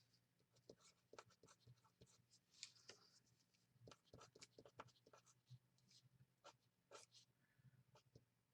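Faint writing: short pen strokes and light taps.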